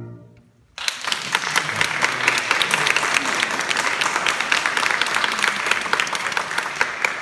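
A final sung note fades into a brief hush, then an audience breaks into applause less than a second in, with many hands clapping steadily.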